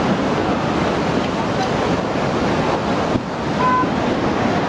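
Tsunami floodwater rushing and churning through streets, a loud steady rush of water with wind buffeting the microphone. A short faint beep sounds about three and a half seconds in.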